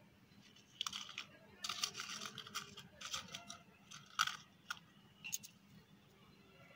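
Dried red chillies crackling and rustling as they are broken by hand into a small stone mortar. The crackles come in short clusters, the sharpest about four seconds in.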